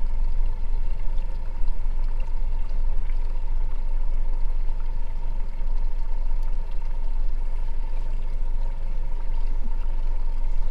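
Water lapping and sloshing against a small fishing boat's hull, over a steady low rumble and a faint steady whine.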